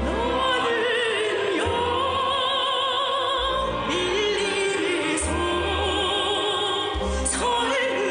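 Music: a singer holding long, wavering notes with strong vibrato over an orchestral backing with low bass notes.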